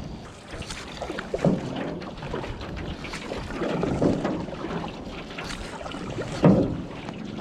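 Paddling a small boat on a lake: irregular paddle splashes and knocks against the hull, with wind buffeting the microphone. The loudest knock comes about six and a half seconds in.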